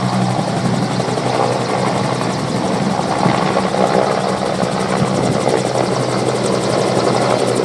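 Medical helicopter's rotor and turbine engine at lift-off power as it climbs away close by: a loud, steady rotor noise with a strong low hum.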